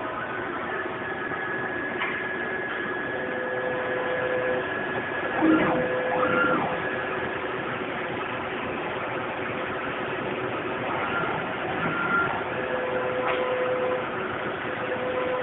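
Hurco VMX42 CNC vertical machining center running under power: a steady mechanical hum with short whines that come and go several times. About five and a half seconds in, a whine sweeps up and back down.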